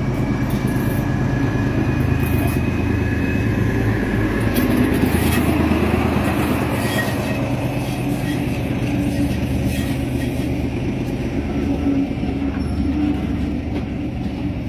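Class 14 diesel-hydraulic locomotive D9525 running as it pulls away, its diesel engine a steady low drone. A faint high whine rises slightly in pitch over the first few seconds.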